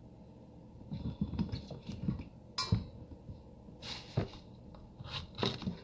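Green bell peppers and a chef's knife being handled on a cutting board: a few separate sharp knocks and crunches.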